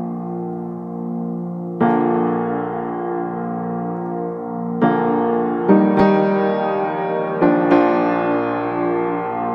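Background piano music: slow sustained chords, with a new chord struck every second or so after the first two seconds.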